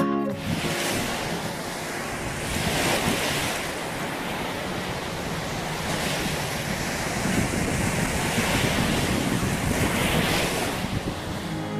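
Small Lake Huron waves breaking and washing up onto a sandy beach, the hiss swelling and fading with each wave several times over, with some wind on the microphone.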